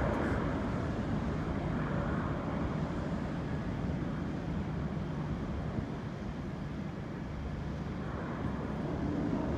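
Jet engines of a departing Boeing 787-9 Dreamliner at climb power: a steady low rumble that fades slowly as the airliner climbs away.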